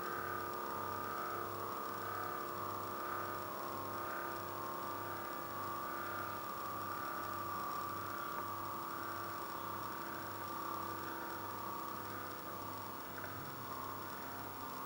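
ForeverSpin Silver metal spinning top spinning on its point on a mirrored base with a steady ringing whir. The whir wavers in an even pulse about twice a second.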